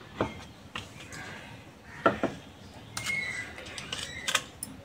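Light knocks and clicks of a plastic mixing bowl and kitchen utensils being handled on a wooden chopping board: single knocks near the start and about two seconds in, then a quicker run of clicks from about three seconds in.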